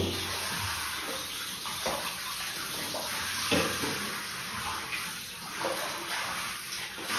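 Running water pouring steadily into a bathtub, with a few small splashes.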